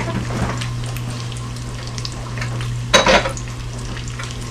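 Bacon strips sizzling steadily in a frying pan, over a constant low hum. There is a short clatter about three seconds in.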